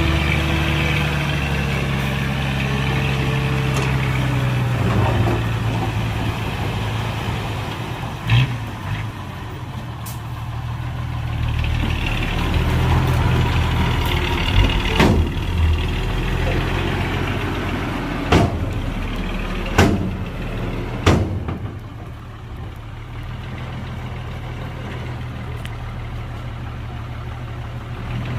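Heavy diesel earthmoving machinery running steadily at a low engine note. Several sharp metallic knocks stand out over it, about once at 8 seconds and then in a cluster between 15 and 21 seconds.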